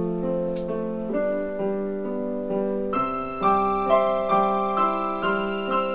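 Gentle piano music: soft, sustained notes and chords, fuller and brighter from about three seconds in.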